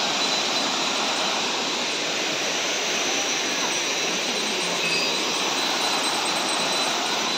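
Waterfall's water rushing down, a very loud, steady, even rush that does not change.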